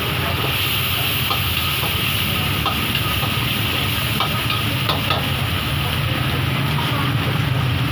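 Chopped chilies and garlic sizzling in hot oil in a wok as they are stir-fried, with a metal spatula clicking against the wok now and then, over a steady low hum.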